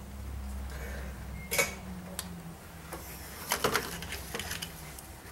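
Metallic clicks and clinks of hand tools working on the engine's front end: one sharp click a little over a second in and a quick run of clicks about three and a half seconds in, over a steady low hum.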